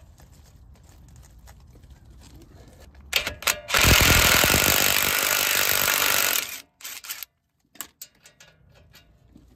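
Cordless DeWalt 20V brushless impact driver blipped a couple of times, then run for about two and a half seconds, hammering as it spins out the brake caliper's bolt. A few short blips follow.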